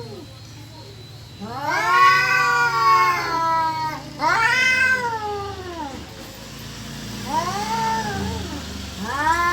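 Domestic cat caterwauling: long, drawn-out yowls that each rise and then fall in pitch. Two loud yowls come back to back in the first half, a quieter one follows, and another loud one starts right at the end.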